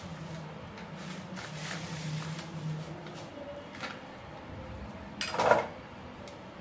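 Kitchen dishes and utensils being handled at the counter: light knocks and clinks, with one louder clatter about five seconds in, over a low steady hum.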